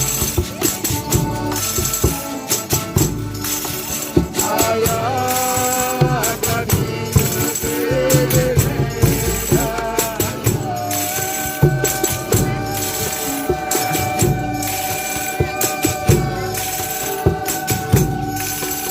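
Folia de Reis music: tambourines jingling in a steady beat under long held melodic notes, with one note sustained through the second half.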